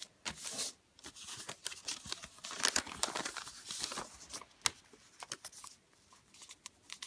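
Thin origami paper rustling and crackling as it is folded and its creases are pressed down by hand. The crackles are busiest in the first half and thin out toward the end.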